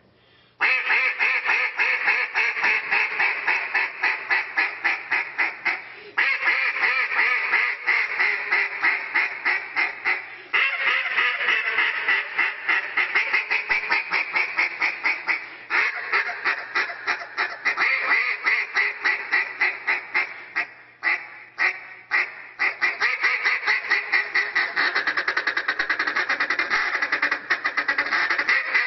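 Hand-held duck call blown in a live-duck contest routine, imitating a hen mallard. Long strings of rapid quacks are broken by brief pauses, with a few spaced single notes about three-quarters of the way through.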